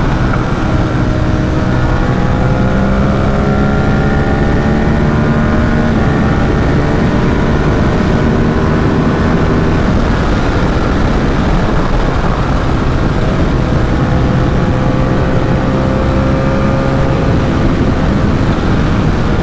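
Ducati SuperSport 950 S's 937 cc L-twin engine running under way, its note rising gently and changing pitch about six seconds in, over a steady rush of wind and road noise.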